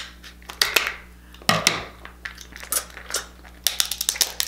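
Cooked king crab leg shell being cracked and pulled apart by hand: a series of irregular sharp cracks and crunchy snaps.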